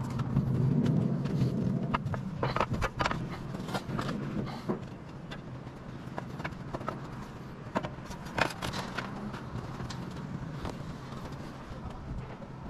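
Roof tiles clinking and knocking against each other and the wooden battens as they are handled and set in place, a run of short sharp knocks. A low drone sits under them, loudest in the first couple of seconds.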